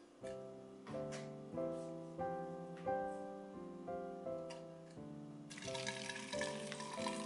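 Gentle piano music, a note or chord about every half second. About five and a half seconds in, liquid starts pouring into a glass, a splashing stream under the music.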